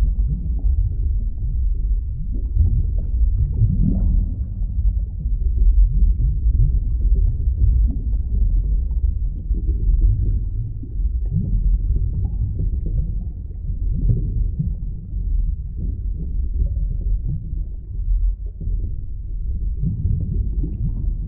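Underwater ambience: a continuous low, muffled rumble of water with small irregular flickers of sound throughout.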